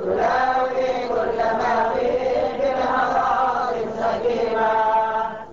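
Male chanting of an Arabic devotional qasida, sung in long, drawn-out melodic phrases.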